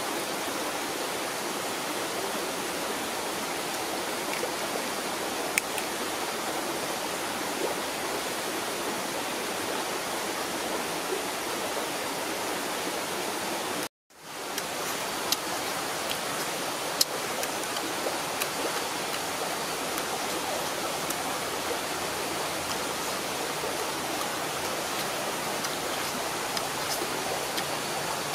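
Steady, even hiss of outdoor background noise, like running water or wind, with a few faint clicks; it drops out for a moment about halfway through.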